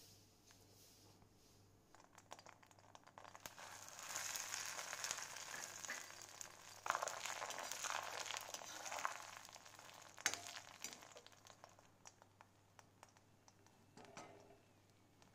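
Hot oil sizzling and crackling in a cast-iron kadai as dried red chillies fry in it. It builds up about two seconds in, is loudest for about five seconds with a couple of sharp clicks, then dies down.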